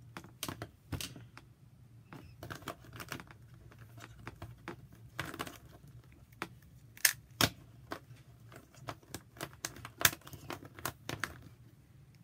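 Plastic Dino Cube puzzle being turned quickly by hand: its corner pieces click and clack irregularly as they twist, with a few sharper clacks about seven and ten seconds in.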